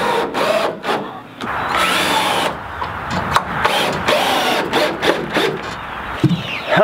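Hand-held power drill driving screws into a wooden eave trim board, running in several short bursts with the motor's pitch rising and falling, and a few sharp clicks between runs.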